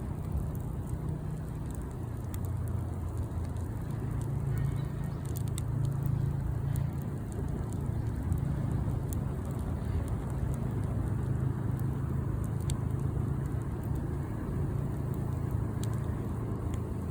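Campfire crackling, with scattered sharp pops and ticks over a steady low rumble.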